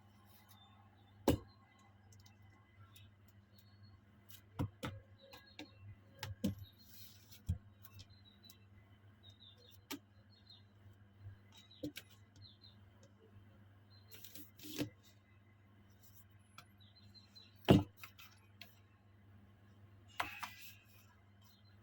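Scattered clicks, taps and a brief rustle from handling the packaging of Tomica die-cast toy cars during unboxing, over a steady low hum. The sharpest clicks come about a second in and near the end.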